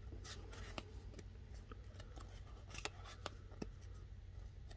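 Stiff Warhammer Underworlds game cards being slid and flicked past one another in the hands: a string of faint, sharp clicks and light rustles, irregularly spaced, over a low steady hum.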